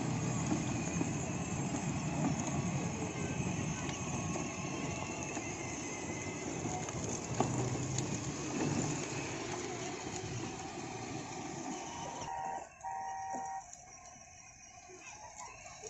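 Battery-powered ride-on toy car driving over rough concrete: a steady rumble from its wheels with a low electric motor hum, which drops away sharply near the end.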